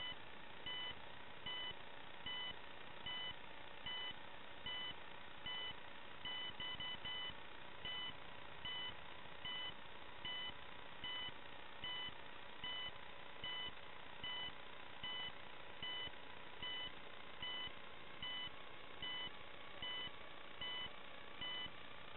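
A landed FPV racing quadcopter's onboard buzzer beeping, short high beeps about once every 0.8 seconds with a quicker run of four about six seconds in, while the battery reads low. A steady hiss from the analog video link runs underneath.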